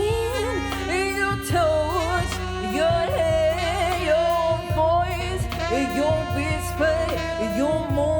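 A pop-soul song with a steady bass line under a gliding melody that carries no clear words, most likely a singer's wordless vocal runs.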